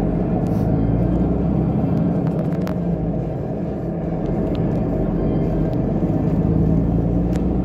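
Inside a bus passenger cabin: steady low rumble of the bus running, with a few faint clicks or rattles, the clearest a little under three seconds in.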